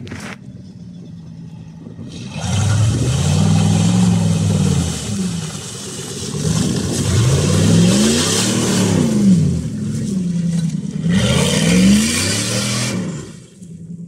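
Jeep Grand Cherokee ZJ's 5.2-litre V8 running low, then revving hard three times as it pulls through mud, each surge rising in pitch and falling back. It drops to a low note near the end.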